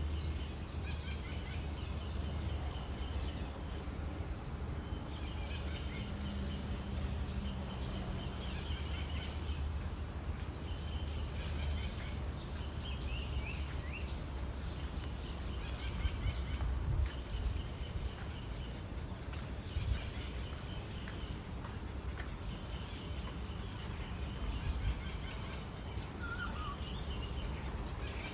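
Cicadas buzzing in a steady, unbroken high-pitched drone, with faint bird calls chirping now and then underneath and a low rumble beneath it all.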